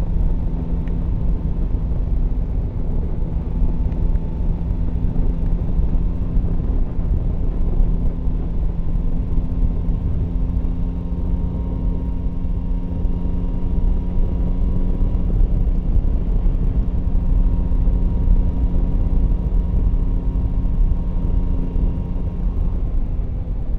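Yamaha Tracer 9 GT's three-cylinder engine running at a steady cruise, holding one even pitch, under low rumbling wind and road noise.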